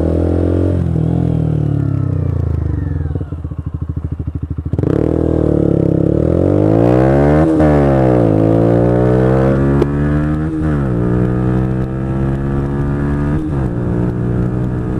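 Honda CBR125R's 125 cc single-cylinder engine through a Scorpion Serket Taper carbon full-system exhaust. The revs fall and the engine ticks over with a fast low pulse, then it pulls away hard. The pitch climbs and drops back at three upshifts, about 7, 10 and 13 seconds in.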